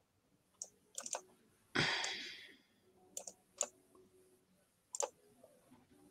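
Computer mouse clicks, some single and some in quick pairs, scattered through a few seconds, with a brief louder rush of noise about two seconds in.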